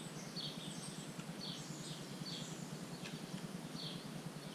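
A bird chirping: short high chirps repeating every half second or so, over a steady low background hum.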